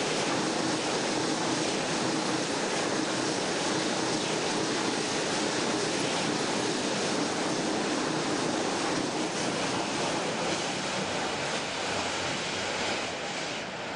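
Freight train carrying road lorries on rail wagons rolling past close by: a steady rushing rumble of wheels on rail that eases slightly near the end.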